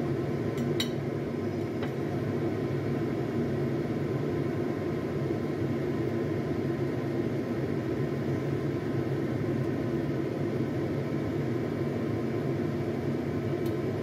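Steady low rushing noise of a pot of coconut-milk vegetable stew simmering on the stove, with a few light clicks of a metal ladle against the pot about a second in and near the end.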